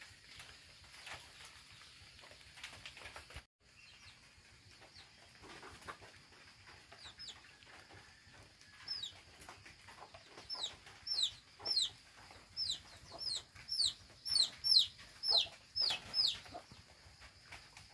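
A bird calling: short, high notes that slide downward, repeated about twice a second and growing louder from about ten seconds in.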